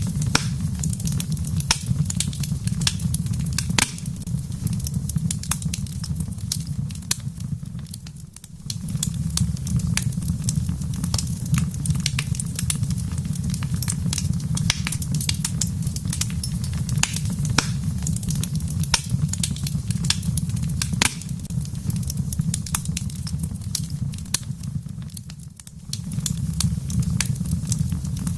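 Wood fire crackling in a fireplace, with frequent sharp pops and snaps over a steady low rumble. The rumble drops away briefly about 8 seconds in and again about 25 seconds in.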